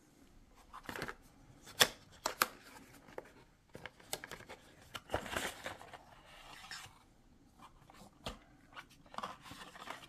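A cardboard box being opened by hand and a plastic insert tray slid out: rustling and scraping of the packaging, with scattered sharp clicks and taps.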